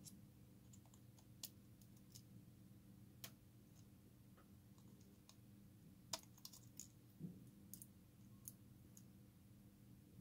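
Near silence: a low steady hum with about a dozen faint, irregular light clicks and taps.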